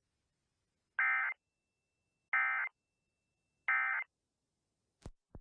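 Emergency Alert System end-of-message data bursts: three short, identical buzzy digital tone bursts about a second and a quarter apart, the coded signal that closes an EAS alert. A brief click follows near the end.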